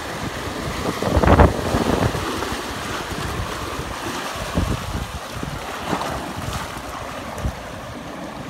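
Sea surf washing and breaking against shoreline rocks, with wind buffeting the microphone in low gusts; a louder rush comes about a second in.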